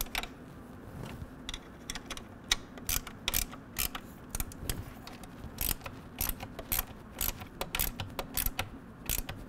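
13 mm ratcheting wrench running a nut down onto a stud: a run of irregular sharp metal clicks and clinks as the wrench is worked and set back on the nut.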